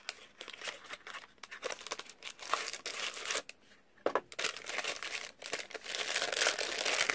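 Cardboard phone-case box being opened and the case slid out, a few sharp clicks and scrapes, then a plastic packaging bag crinkling steadily from about four seconds in as it is handled, growing louder near the end.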